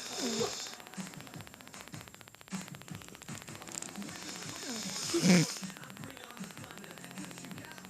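An elderly woman snoring in her sleep, with a short pitched snore right at the start and a louder snorting snore about five seconds in.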